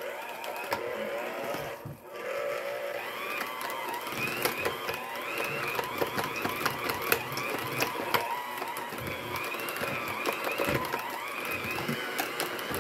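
Electric hand mixer running, its beaters churning thick banana bread batter in a stainless steel bowl, with frequent clicks of the beaters against the bowl. The motor whine wavers in pitch as the load changes, and it dips briefly about two seconds in.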